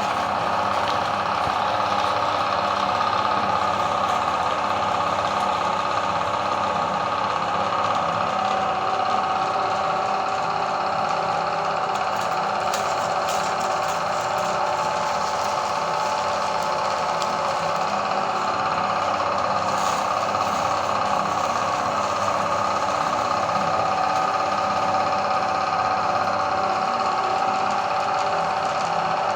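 Electric meat grinder running steadily with a constant motor hum, a few faint clicks over it.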